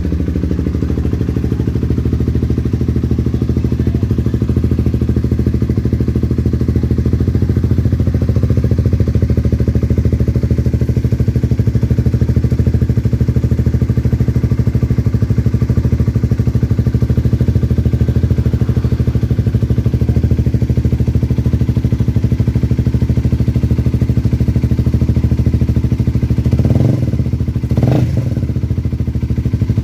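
Honda CBR150's single-cylinder four-stroke engine idling steadily through an Akrapovic aftermarket exhaust, with a few short throttle blips near the end.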